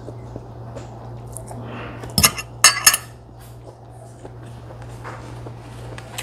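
Metal fork clinking and scraping against a glass food container while she eats, with three sharp clinks close together a little over two seconds in, over a steady low hum.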